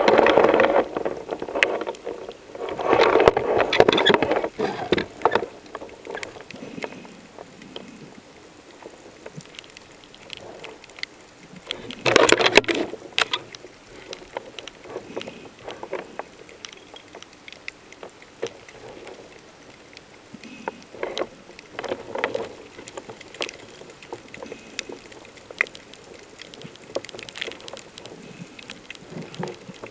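Underwater sound picked up by the camera: irregular bursts of rushing, bubbling water noise, the loudest at the start, again a few seconds in and about twelve seconds in, over a low bed of scattered faint crackling clicks.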